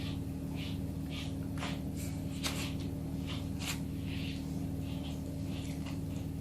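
A puma purring in a steady low rumble while a grooming brush is drawn through its fur in repeated short scratchy strokes, roughly one or two a second.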